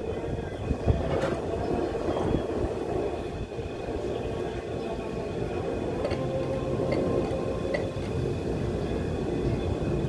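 Harbor Breeze Builders Best ceiling fan running, a steady hum and rush of air from the motor and spinning blades. A small click about six seconds in as its pull-chain speed switch is tugged.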